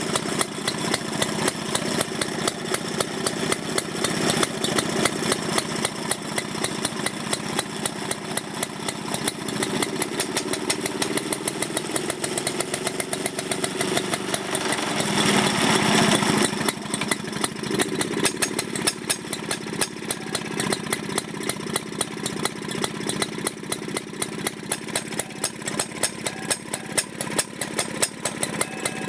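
Villiers petrol engine of a 1957 Ransomes Minor Mark 7 lawnmower running with a steady, even beat of firing strokes. About fifteen seconds in it briefly grows louder and deeper, then settles back to its steady run.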